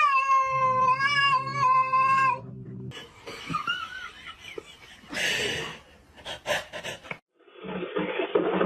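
A cat yowling in one long, drawn-out, wavering meow that breaks off about two and a half seconds in. Quieter scattered rustles and knocks follow.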